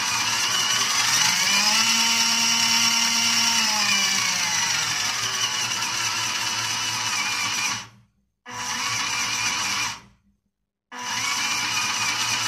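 WPL C24-1 RC crawler's electric motor and gearbox whining with the wheels spinning freely in the air, set to high speed. The pitch rises as the throttle is squeezed, holds, then falls as it is eased off, and rises again near the end. The sound cuts out to silence twice.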